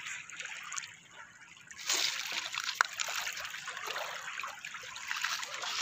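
Hooked carp splashing and thrashing at the surface of shallow water as it is drawn in to the shore. The patter of small splashes and sloshing starts about two seconds in and keeps on.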